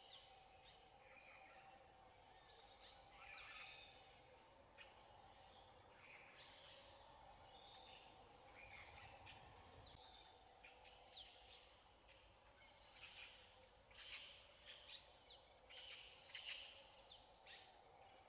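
Faint forest ambience: a steady insect drone with short, high chirps and calls scattered through it, coming more often in the last few seconds.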